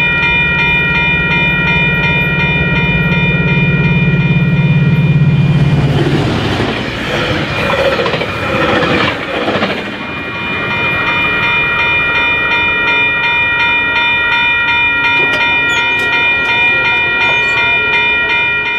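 Railroad grade crossing bells ringing steadily with the gates down. Under them a low diesel drone from a passing FrontRunner train fades out about six seconds in, followed by a few seconds of rushing train noise. The bells keep ringing as the gate arm lifts near the end.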